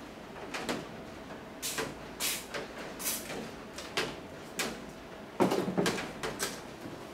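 Oiling the rear bearing of an electric fan motor: a string of short hisses and light knocks, with one louder clatter about five and a half seconds in.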